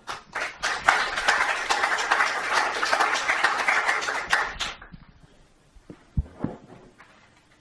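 Audience applauding for about four and a half seconds, then dying away, with a soft thump after it.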